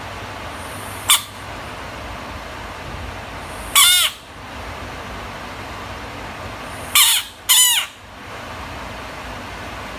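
A frog screaming: three short, loud, high squeals that fall in pitch, one about four seconds in and two close together about seven seconds in, over a steady hiss. A brief sharp click sounds about a second in.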